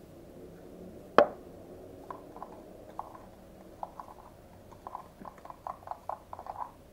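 A single sharp knock about a second in, then a plastic spoon stirring dish soap and salt in a small plastic cup: a run of short, quick clicks and squishes as the mixture thickens into slime.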